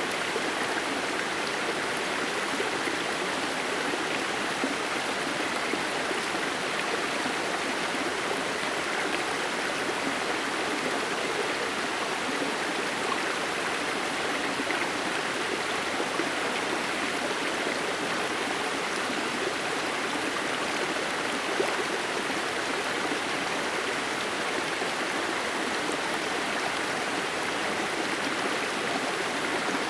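Steady rush of a waterfall streaming in thin threads down a rock face, an even splashing hiss of water.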